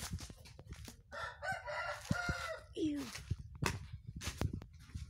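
A rooster crowing once, a call of about two seconds that drops in pitch at the end, with scattered clicks and knocks around it.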